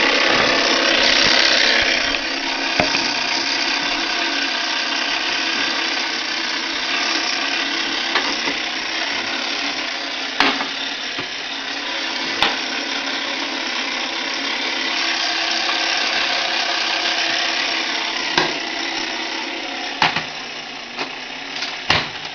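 Spring-driven clockwork signalling mechanism of a 1950s Gamewell fire alarm box running on its own, a steady whirring with occasional sharp clicks as it sends its coded signal.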